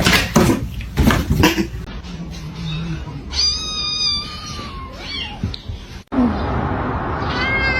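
A cat meowing: one long, drawn-out meow, slightly falling in pitch, about halfway through, with a few knocks and thumps in the first two seconds. A second meow starts near the end.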